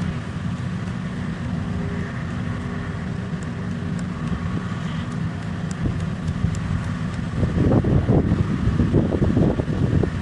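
Heavy mining machine's engine running steadily, with a few faint ticks midway. The engine gets louder and rougher from about seven and a half seconds in until near the end.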